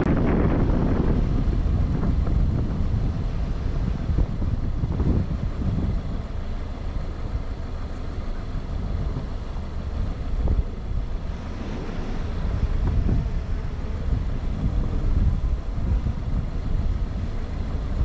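Subaru Outback driving over a rutted dirt track, heard from a hood-mounted camera: a steady low rumble of the car and its tyres with wind buffeting the microphone, and a few knocks as it rides over bumps.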